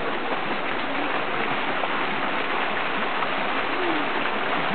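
A steady, even rushing hiss with no distinct events in it.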